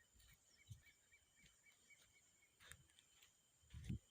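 Near silence: faint outdoor background with a steady faint high tone, scattered faint ticks and a soft low thump near the end.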